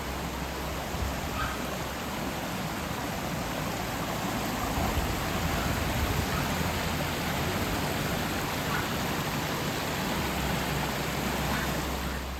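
Steady rushing water, a little louder in the middle.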